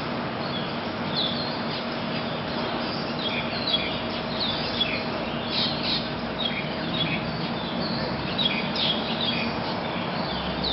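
Birds chirping: many short, quick calls keep repeating over a steady background hiss and a faint hum.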